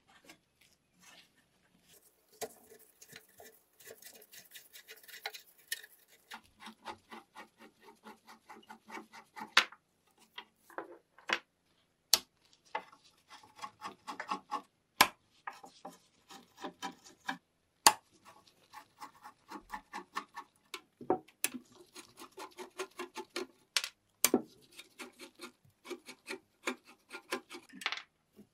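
Screwdrivers working rusted slotted screws out of a rusty Raadvad bread slicer's metal frame. Quick runs of short scraping, grinding strokes as the seized threads turn, with several sharp clicks along the way.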